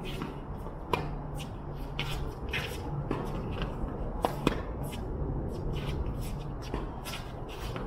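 Tennis ball being struck or bounced on a court: sharp pocks about a second in and two close together just past four seconds. Between them, shoes scuff and shuffle on the court surface.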